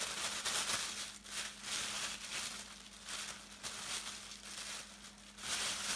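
Thin white tissue wrapping paper crinkling and rustling in uneven bursts as it is pulled open by hand.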